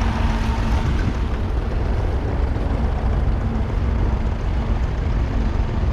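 1943 Fordson Model N tractor's 4.0-litre four-cylinder diesel engine running steadily, with a dense low rumble of fast, even firing pulses.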